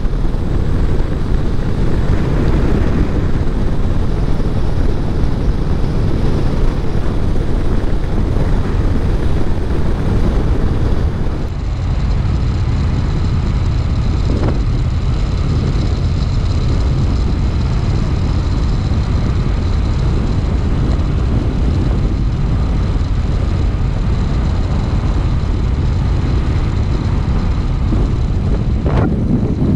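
Harley-Davidson V-twin motorcycle riding at road speed, a steady engine drone mixed with road noise. The sound changes slightly about eleven seconds in.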